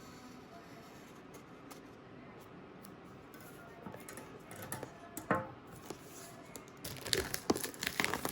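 A knife cutting and tearing the plastic wrap along the sides of an iPad box, with scattered clicks and scrapes, then dense crinkling and tearing near the end.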